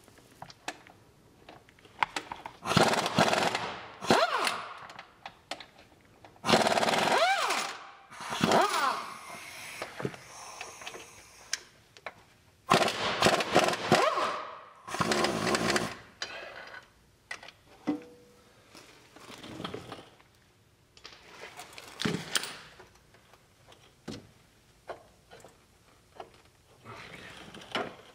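Pneumatic wrench run in about half a dozen short bursts, its whine gliding up and down, as bolts on the transmission are loosened. Small metal clinks and knocks come between the bursts.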